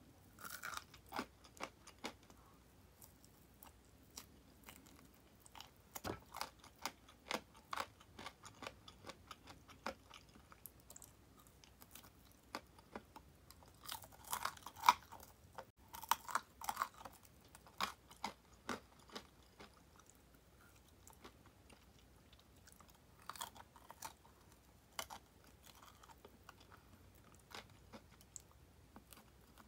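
A person biting and chewing crispy deep-fried tulip-style chicken drumettes, with many small crisp crunches. Louder bursts of crunching come about halfway through and again at about three-quarters.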